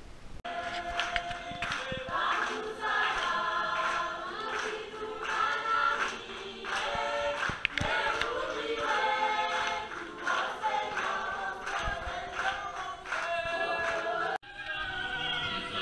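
A choir of many voices singing together. The sound breaks off abruptly about 14 seconds in, and more singing follows at once.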